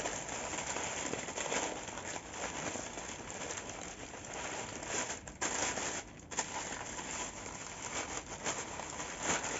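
Plastic packaging crinkling and crackling as it is handled and unwrapped, with brief pauses about five and six seconds in.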